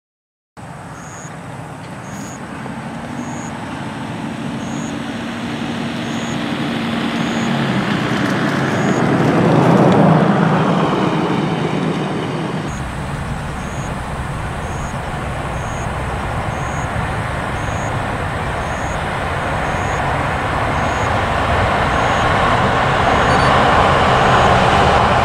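Train on the JR Tokaido Line running across a long steel truss railway bridge: a steady rumble and rattle that swells to a peak about ten seconds in, with a humming tone that drops in pitch as it passes, then another approach that grows steadily louder toward the end.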